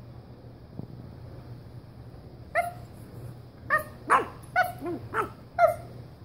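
Pug puppy yipping: a string of about six short, high-pitched yips, each falling in pitch, starting about two and a half seconds in. It is a baby pug's thin, immature bark as he finds his voice.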